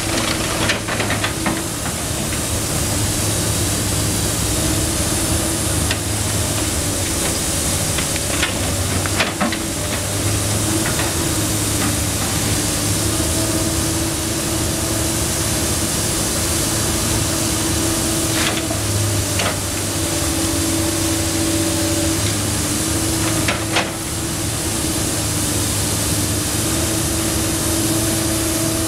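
Komatsu PC290 NLC excavator's diesel engine and hydraulics running steadily under load as its sorting grab works the wall, over the even hiss of a dust-suppression water spray. A few sharp knocks and crunches of breaking masonry and debris come through, about a second in, around nine seconds and twice more in the later half.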